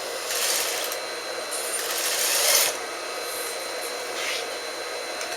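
Short bursts of rasping, rubbing noise as trouser waistband fabric is worked through a sewing machine. The loudest burst comes about two seconds in and cuts off sharply, over a steady motor hum.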